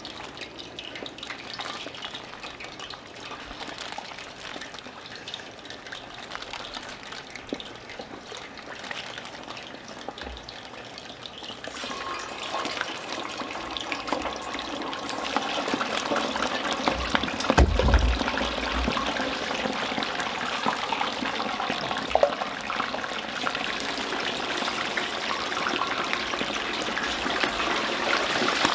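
Chicken wings deep-frying in hot oil in cast iron Dutch ovens: a steady sizzling and bubbling that grows louder partway through. A low thump a little past the middle.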